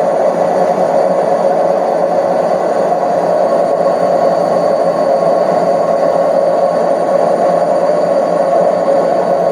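Indesit washing machine on a fast spin, a loud, steady, high-pitched racket that the owner puts down to worn drum ball bearings.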